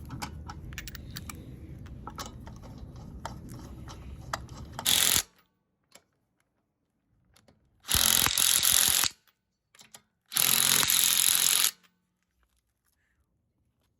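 Power tool run in three short bursts, the last two each about a second long, tightening the bolts on newly installed control arms; scattered clicks come before the first burst.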